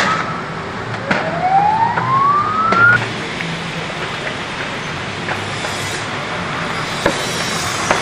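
Emergency vehicle siren sweeping upward in pitch, a sweep ending just after the start and a second, longer one breaking off about three seconds in. After that comes a steady background hiss with a few sharp clicks.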